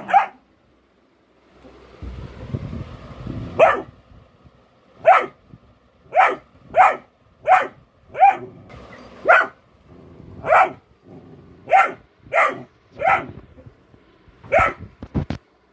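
Golden retriever puppy barking: about a dozen short, sharp, fairly high barks, roughly a second apart. A low rumbling noise runs for a couple of seconds before the first bark.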